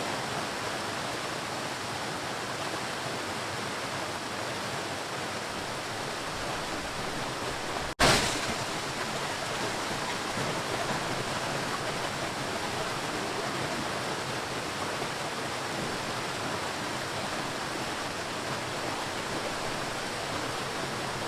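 Ocean waves: a steady rushing wash of surf. About eight seconds in it breaks off for an instant, then comes back with a sudden louder surge that eases off.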